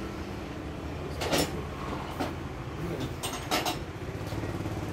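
Steady low machine hum with a few sharp knocks on top: one a little over a second in, one around two seconds, and two close together about three and a half seconds in.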